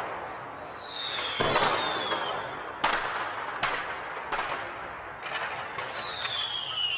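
Fireworks going off: a string of sharp bangs and cracks, with two long whistles sliding down in pitch, one starting about half a second in and another near the end.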